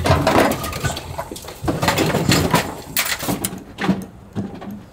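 Kitchen clatter at a food stall: an irregular run of knocks and clinks of dishes and utensils being handled, busiest in the first second and again from just under two seconds in to about three and a half seconds.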